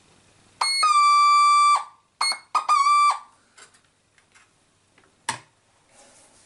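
Casio DH-100 digital horn sounding through its built-in speaker: one held note of about a second, then two short notes, the second bending slightly in pitch as it starts. A single sharp click follows near the end.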